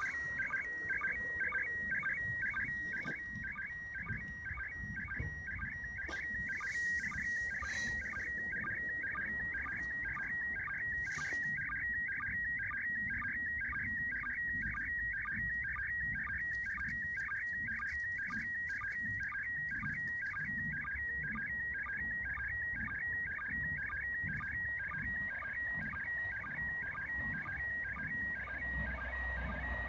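Slow-scan television (SSTV) picture signal from the International Space Station in PD120 mode, heard through a Uniden UBC125XLT handheld scanner's speaker. It is a shrill, steady warbling tone whose pitch shifts constantly as it carries the picture, broken by a short lower sync beep about twice a second. A low hiss and rumble of radio noise sits under it.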